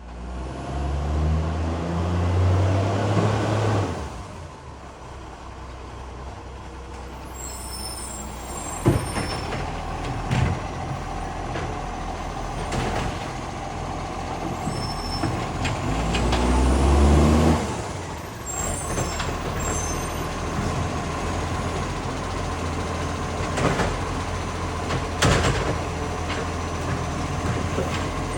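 Side-loader garbage truck's diesel engine running and revving up twice, loud with the rasp of an exhaust leak, between stretches of lower running. A few sharp hisses and bangs are heard, of the kind an air brake makes.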